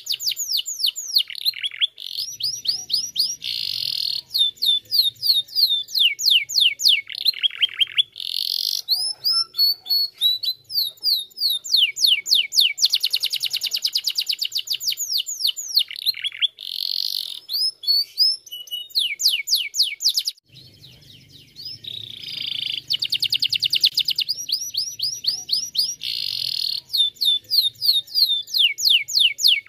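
Domestic canary singing a long, continuous song of fast trills and rapid down-slurred notes, with one short break about two-thirds of the way through.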